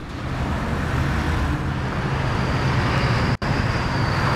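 BMW 328i's inline six-cylinder engine idling steadily, heard from outside the car over a steady rushing background noise. The sound drops out for an instant about three and a half seconds in.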